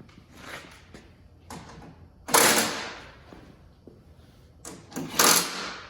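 Workshop handling noises: a few knocks and clattering bangs of tools and parts being picked up and set down, the loudest about two and a half and five seconds in.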